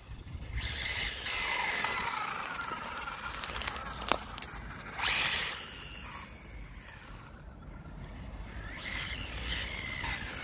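Electric motor and drivetrain of a WLtoys A959-B RC car whining as it is driven, the pitch sliding up and down with the throttle. There is a sharp click about four seconds in and a brief, louder burst of noise about five seconds in. The whine eases off in the middle and picks up again near the end.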